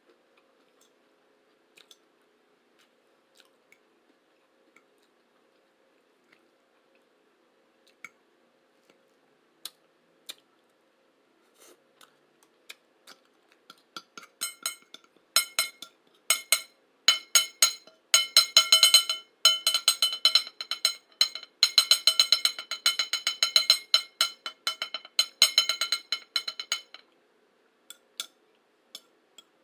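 Cutlery tapping, then rapidly clicking and scraping against a plate, which rings with each stroke. Scattered light taps at first; about halfway in a long fast run of clicks begins and stops shortly before the end.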